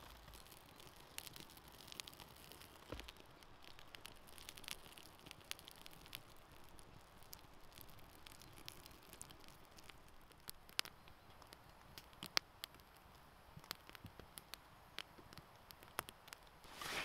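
Small wood campfire of split logs crackling, with irregular sharp pops, a few of them louder. Near the end, a brief rustle of a fabric backpack being handled.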